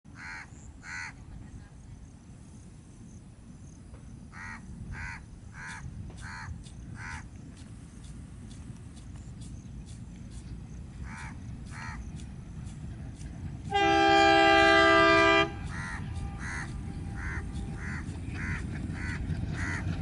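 WDM3A ALCO diesel locomotive sounding its multi-tone horn once for about two seconds, about two-thirds of the way in. Beneath it runs the low rumble of the locomotive's V16 diesel engine, growing louder as the train approaches, while crows caw in short repeated calls throughout.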